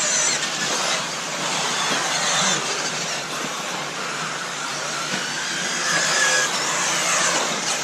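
Several radio-controlled off-road race cars running around a dirt track together, their motors rising and falling in pitch as they accelerate and brake.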